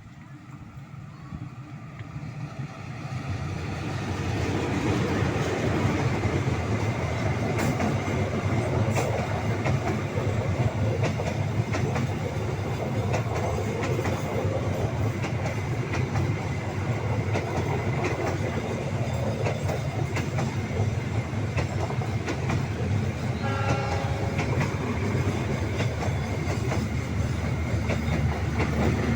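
Argo Dwipangga express passenger train, hauled by a CC206 diesel locomotive, running past: a rumble that builds over the first few seconds, then a steady loud rumble and rattle of the coaches' wheels on the rails. A brief steady tone sounds over it near the end.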